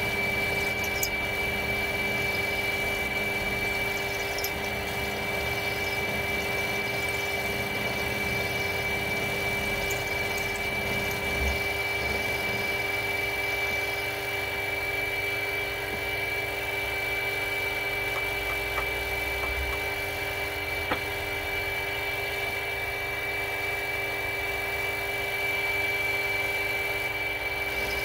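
Mini milling machine running with its end mill cutting a curved slot in a metal plate. It makes a steady whine with a few faint clicks.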